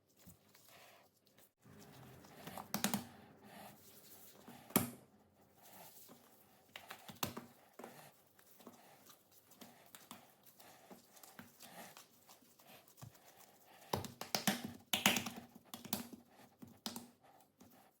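Faint, irregular handling noises: scattered clicks and light knocks mixed with crinkling and rustling, with louder clusters about three and five seconds in and again near the end.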